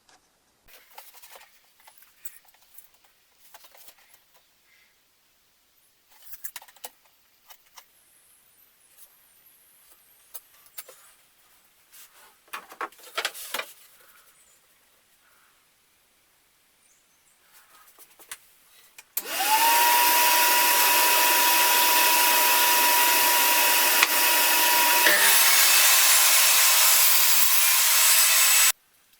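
Light scattered clicks and handling noises, then an electric power tool starts with a quickly rising whine and runs loud and steady for about nine seconds. Its sound changes partway through, and it stops abruptly.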